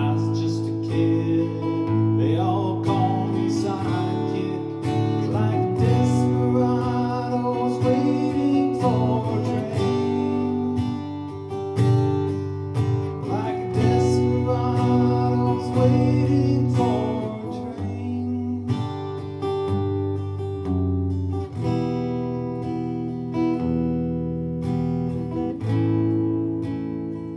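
Acoustic guitar music: strummed chords throughout, with a wavering melody line over them for much of the first two-thirds.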